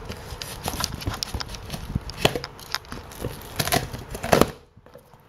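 A cardboard box sealed with filament packing tape being cut and pried open by hand: irregular scrapes and knocks of cardboard and tape, with a few louder knocks past the middle, dying away about a second before the end.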